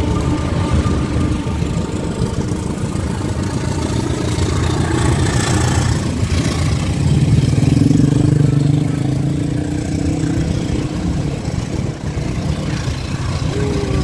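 Passenger train passing close by: the steady drone of a diesel engine over the rumble of the coaches on the track, loudest about eight seconds in.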